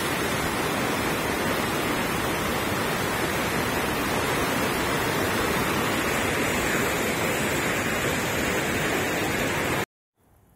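Steady rush of fast-flowing water, loud and unchanging, cutting in and out abruptly.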